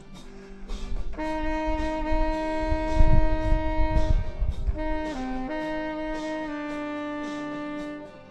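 Selmer Mark VI saxophone playing long held notes and stepping between a few pitches, with a low rumble under the notes about three seconds in.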